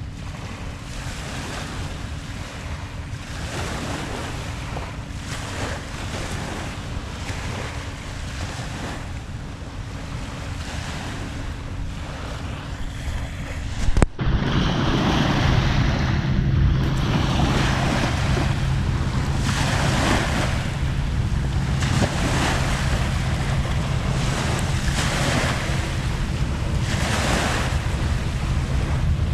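Small waves of the incoming tide washing onto the shore, with wind buffeting the microphone. About halfway through, the sound jumps abruptly and a steady low hum joins the surf.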